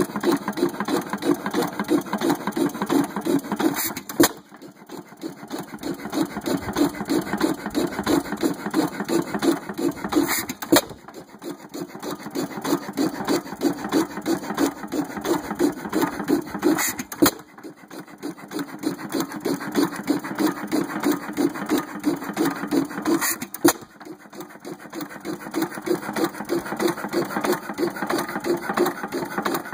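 1905 6 HP Root & Vandervoort stationary engine running, a fast rhythmic mechanical clatter with a sharp crack about every six seconds.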